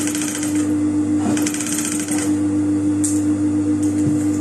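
Juki industrial sewing machine stitching in short runs over the steady hum of its motor. A fast needle chatter starts and stops twice, with a brief third burst near the end.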